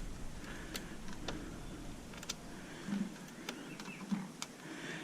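Scattered light clicks and taps of small parts and tools being handled while electronic equipment is taken apart.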